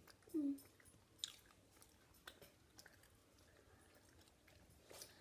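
Faint wet clicks and smacks of a mouth chewing a chewy Airheads taffy candy, with a short hummed "mm" falling in pitch about half a second in.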